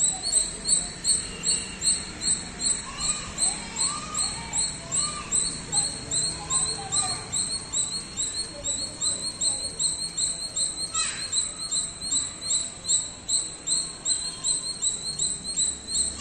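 A squirrel's repeated chirping call: short, sharp, high chips at a steady pace of about three a second, kept up without a break, with a few softer bird-like calls underneath.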